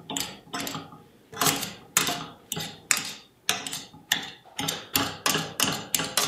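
Potato masher pounding steamed cauliflower in a stainless steel pan: a steady run of metal clacks against the pan, about two to three a second, each dying away quickly.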